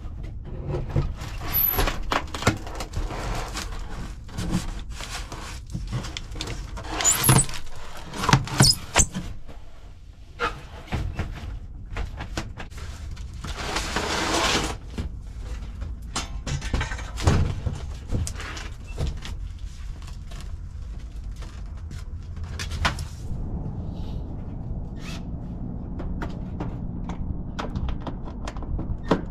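Handling noise from a large cardboard-boxed condensing unit being slid across a van's cargo floor and onto a hand truck: irregular knocks, thumps and scrapes, with a few short squeals about seven to nine seconds in and a longer scrape around fourteen seconds in. The knocks grow quieter and sparser near the end.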